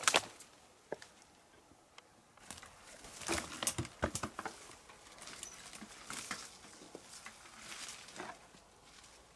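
Footsteps on dry grass and twigs, with dry brush rustling as a person pushes through it; the steps come loudest in a cluster about three to four seconds in, and a steadier rustling follows.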